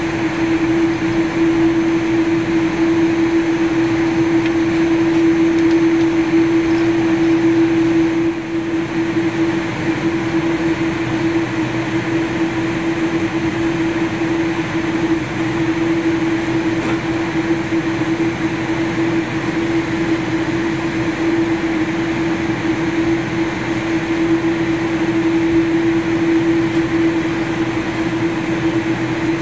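Steady airliner cabin noise while taxiing: engines at idle and the cabin air system, an even rush with a constant mid-pitched hum.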